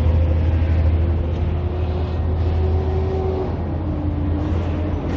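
Road traffic: a steady low rumble of passing vehicles, with an engine hum that drops a little in pitch about three and a half seconds in.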